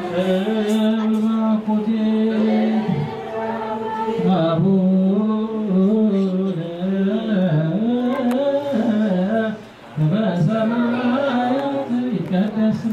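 Ethiopian Orthodox Tewahedo congregation chanting together in unison, a slow, sustained liturgical chant of Good Friday prayers with long held notes.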